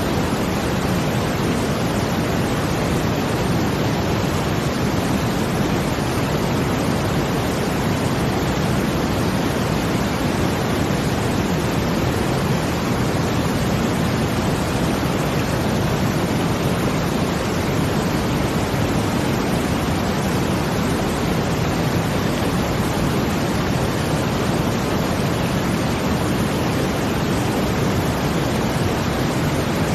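Brown noise blended with the sound of water: a steady, even hiss, heaviest in the low end, with no swells or breaks.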